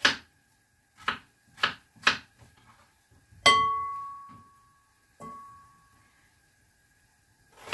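Kitchen utensils knocking on cookware, four sharp knocks in quick succession, then a metal pan or bowl struck twice, each strike ringing on with a clear tone before dying away.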